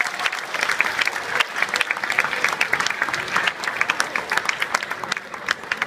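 Audience applauding: many hands clapping densely, thinning to a few scattered claps near the end.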